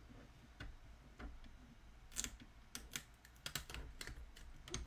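Transfer tape being peeled off an adhesive vinyl decal on a 2-gallon bucket: faint, irregular crackles and ticks.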